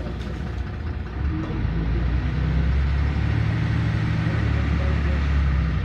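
LiAZ 5292.21 city bus engine running. It grows louder about a second and a half in, as if pulling harder, then eases off near the end.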